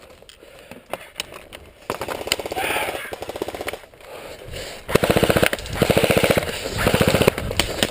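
Airsoft guns firing rapid full-auto bursts. The first stretch of fire starts about two seconds in, and longer bursts follow from about five seconds in.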